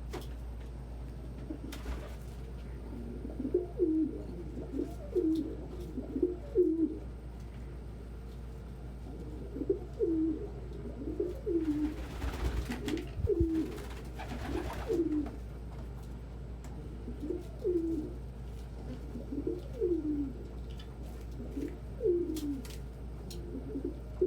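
Domestic pigeons cooing: runs of low, rising-and-falling coos, several in a row, with pauses between, and a brief rustle midway.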